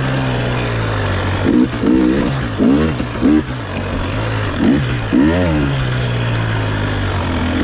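KTM 300 XC-W two-stroke single-cylinder dirt bike engine under way, its revs rising and falling several times with blips of throttle between stretches of steadier, lower running. A couple of sharp clicks sound near the middle.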